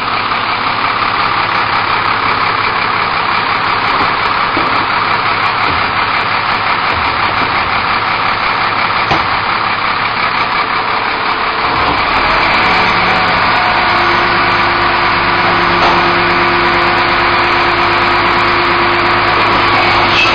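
Recycling truck engine idling, then about twelve seconds in it speeds up and a steady hydraulic whine joins it as the cart tippers lift bins to empty them into the hopper.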